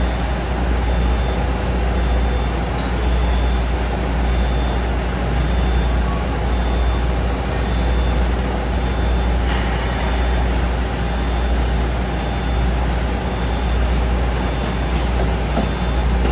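A steady low mechanical rumble, like a large engine running, with a faint high tone pulsing less than a second apart through the first half.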